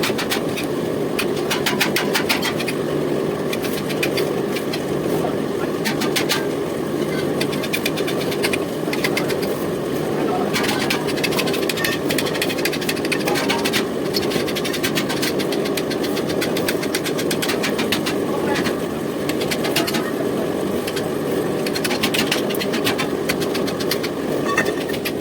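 Metal lathe running with a steady low hum while working pipe nipple stock, with repeated spells of sharp clicking and scraping.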